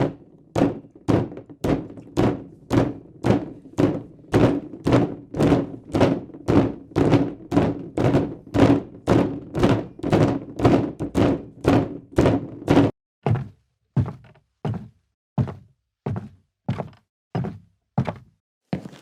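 Footsteps walking on a wooden floor at a steady pace of about two steps a second, each step a hollow thunk. For the first thirteen seconds or so each step rings on with a boomy resonance; after that the steps sound drier and more clearly separate.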